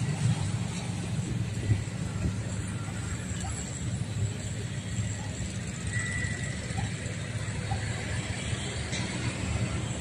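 Outdoor city ambience by the water: a steady low rumble, with a brief high tone about six seconds in.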